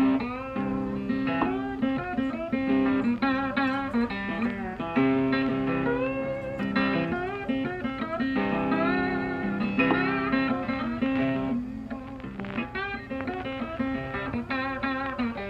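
Background music: a guitar playing a melody with bent, wavering notes over a held low note.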